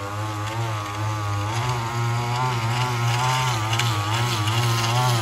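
Gas string trimmer's small two-stroke engine running, its pitch wavering up and down as the throttle is worked.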